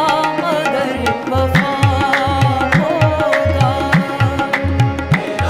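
Background music: a South Asian song with a sung, wavering melody over a steady tabla-like drum beat that enters about a second in.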